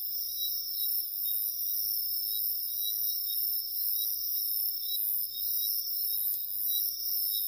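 A night chorus of crickets and other insects trilling steadily at several pitches at once, the highest a shrill hiss-like band.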